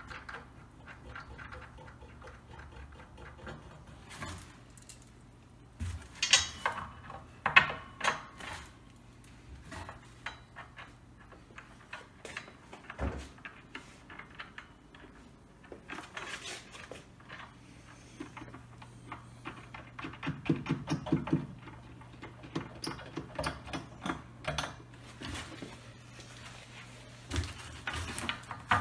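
Metal clinks, taps and knocks of hand assembly: a steel foosball table leg and its bracket being handled and fitted into the wooden cabinet corner, with scattered sharp clicks, a low thump about thirteen seconds in and a short run of quick ticks later on, over a faint steady hum.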